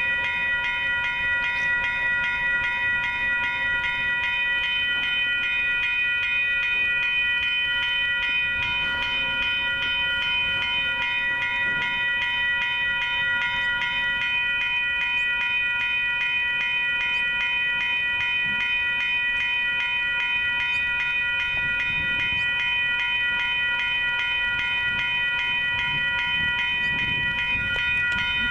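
Railroad grade-crossing warning bell ringing continuously in a fast, even repeat, sounding while the crossing signals flash to warn that a train is approaching.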